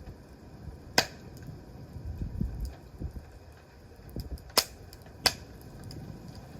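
Wood campfire crackling, with three sharp pops from the burning wood about a second in and twice near the end, over a low rumble of wind on the microphone.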